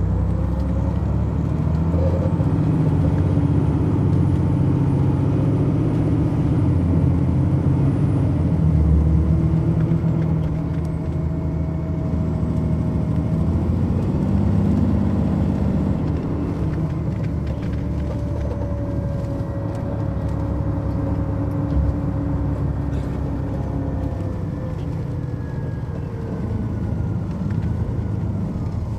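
Detroit Diesel Series 60 diesel engine of an MCI D4000 coach bus running under way, heard from inside the cabin. Its note climbs about ten seconds in, then falls slowly through the second half, with a faint high whine in the first third.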